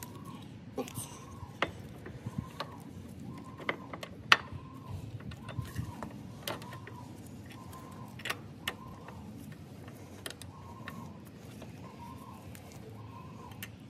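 Scattered sharp metal clicks and taps from hand work on a scooter's rear brake caliper and pads, irregularly spaced, the loudest about four seconds in.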